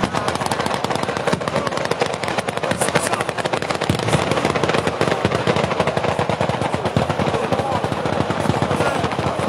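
Ground-level fireworks going off in a rapid, unbroken run of sharp bangs and crackles.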